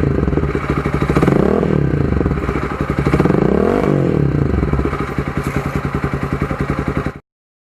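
Motorcycle engine running through an Akrapovic dual-outlet 51 mm muffler with its silencer insert fitted: a deep bass exhaust note at idle, revved up and back down twice. The sound cuts off suddenly near the end.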